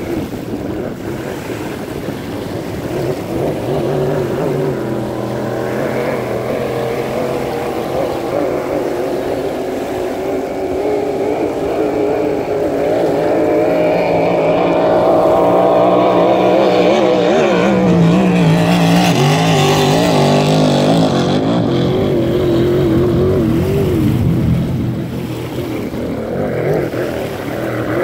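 Racing powerboat engine running at high revs on the course. It grows louder, is loudest for several seconds around the middle, its pitch drops as the boat passes, and it then eases off.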